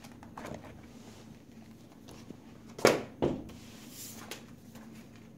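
A paperback coloring book being handled: soft paper rustles, then two sharp knocks or flaps close together about three seconds in as the book is closed and set down.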